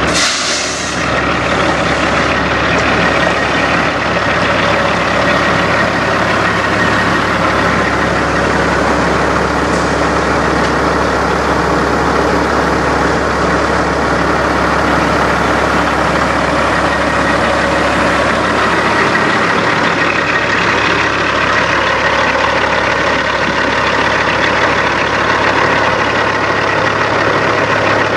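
Peterbilt semi truck's diesel engine idling steadily, with a brief hiss of air right at the start.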